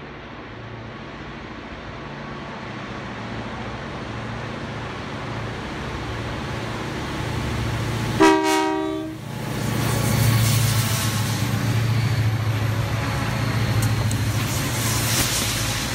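A freight train led by several diesel locomotives approaches and passes close by, its rumble growing steadily louder. About eight seconds in the lead locomotive sounds one short horn blast, and then the engines' drone is loud as the locomotives go by.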